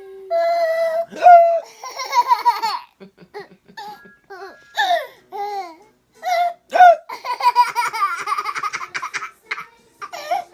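A baby laughing and squealing, with high, swooping vocal noises in a string of short bursts.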